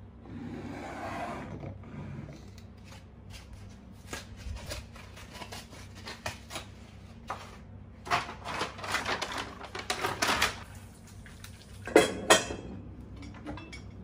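Kitchen handling sounds on a countertop: a cardboard egg carton rustling at first, then a run of light clicks and taps from items being picked up and set down, and two sharp knocks near the end.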